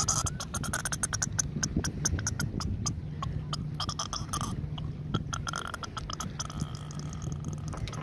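A hooked sea catfish croaking and grunting in bursty, burp-like stretches while it is held and unhooked, over a dense run of sharp clicks.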